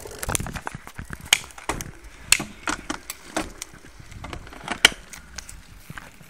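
Camera handling noise: irregular clicks and knocks with rubbing and rustling as the device is moved with its lens covered.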